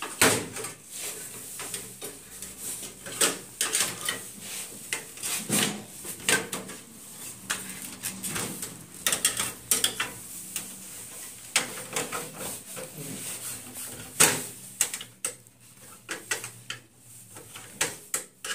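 The plastic frame and clips of an LED TV panel being pried loose with a screwdriver: a run of irregular clicks, snaps and knocks of plastic against the metal chassis, the loudest about 14 seconds in.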